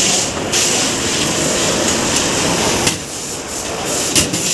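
Steady workshop noise with a few sharp metal clicks as brake caliper parts are handled on a steel tool cart.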